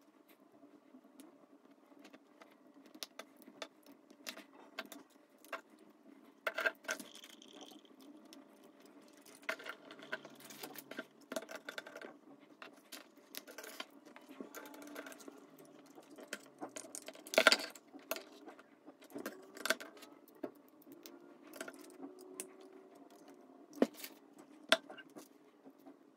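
LEGO bricks clicking and rattling as small plastic pieces are handled and pressed together, in scattered sharp clicks. The loudest clatter comes a little after halfway, with two sharp clicks near the end.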